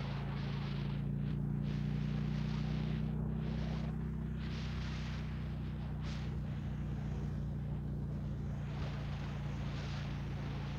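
Motorcycle engine running at a steady pitch while riding, with wind rushing over the microphone that swells and fades.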